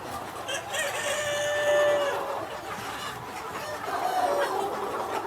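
A rooster crows once, a long drawn-out crow from about half a second to two seconds in, followed near the end by shorter clucking calls from chickens.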